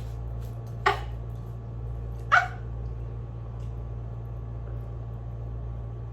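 A small dog barking twice, two short sharp barks about a second and a half apart, over a steady low hum.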